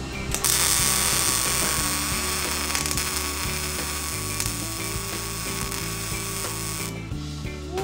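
A power tool runs with a steady high whine and hiss for about six and a half seconds, starting and stopping abruptly, over background music.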